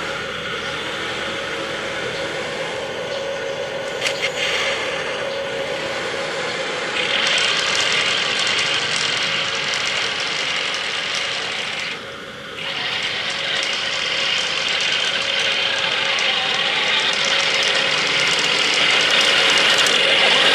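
Radio-controlled M1A2 Abrams model tank running: a recorded gas-turbine engine sound plays from a small mp3 player's speaker, mixed with the whirring of the model's drive gears. It gets louder about seven seconds in, with a short drop about twelve seconds in.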